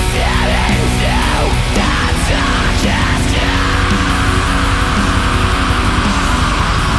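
Black metal music: a dense wall of distorted guitars and drums. In the first half a line swoops up and down in pitch over the steady backing; after that it settles into an even, hissing wash.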